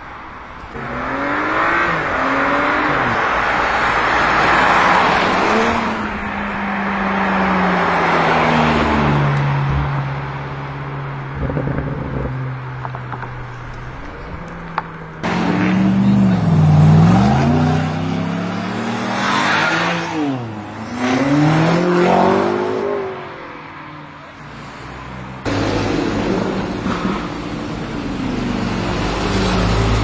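Stage 2 tuned BMW M5 F90's twin-turbo V8 accelerating away, its pitch climbing and stepping down at gear changes, then settling into a steady drone. After a cut about halfway through, an engine is revved hard in repeated quick rises and falls, and near the end another car engine runs more steadily.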